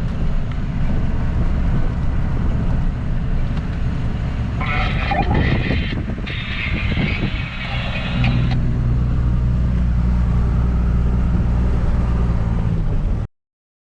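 Motor vehicle engine and road noise as a low rumble, settling into a steady engine drone about eight seconds in, then cutting off abruptly near the end.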